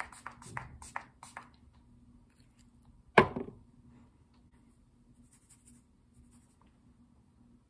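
A quick run of soft scratchy strokes and light taps, then one sharp knock with a short ring about three seconds in, as of a hard object set down on a surface.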